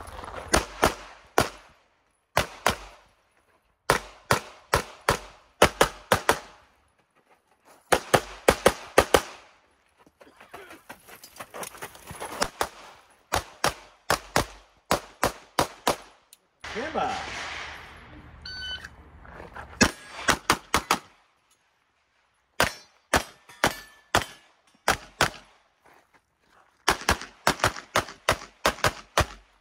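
Handgun fired in rapid strings of sharp shots, usually two to six in quick succession, separated by short pauses as the shooter moves between positions.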